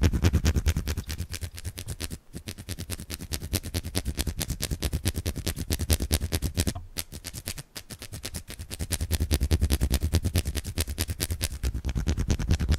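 Rapid, rhythmic hand sounds, palms and fingers working against each other right up against a Zoom H1n recorder's microphones, close and bass-heavy. The sound breaks off briefly about two seconds in and again around seven seconds.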